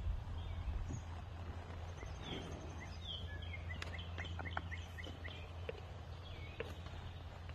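Steady low outdoor rumble with a small bird chirping a quick run of short notes in the middle, and a few faint ticks.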